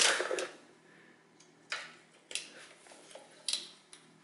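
A few sharp metallic clicks and taps, spread out about a second apart and starting nearly two seconds in, from a hand tool with a 10 mm socket being fitted to engine cover bolts.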